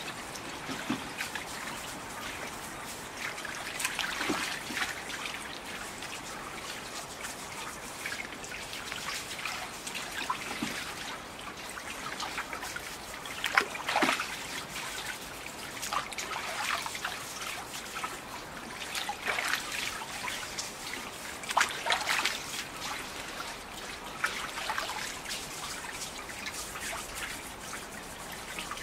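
Daikon radishes being scrubbed with a hand brush in a tub of water: continuous trickling and dripping water, with irregular brush strokes and splashes, the loudest about halfway through and again about two-thirds through.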